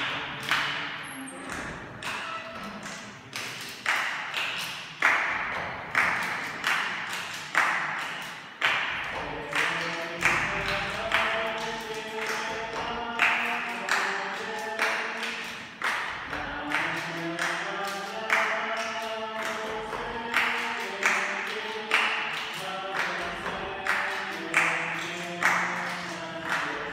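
A small group performing a rhythmic piece. Sharp hand taps or claps keep a steady beat under held, stepping pitched notes.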